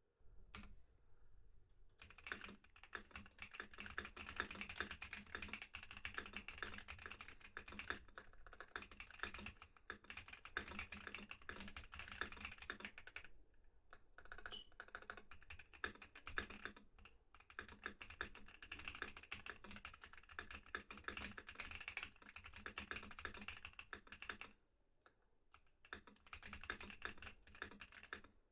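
Typing on an Asus ROG Azoth mechanical keyboard: a fast, continuous run of key clacks, pausing briefly about halfway through and again a few seconds before the end.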